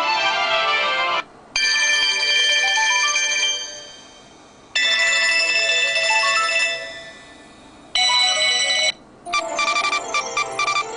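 iPhone ringtones playing one after another: electronic melodic tones with rising runs of notes, each ring fading out before the next. Near the end it changes to a fast, choppy pulsing ringtone.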